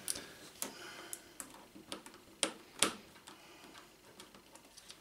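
Faint, irregular small clicks and ticks of insulated wires and plastic spiral cable wrap being handled and bundled together, the two loudest clicks a little past halfway.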